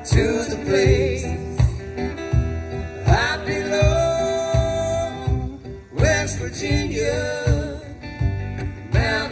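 Live country band playing: fiddle over acoustic and resonator guitars, with a held fiddle note about four seconds in, all on a steady low drum beat.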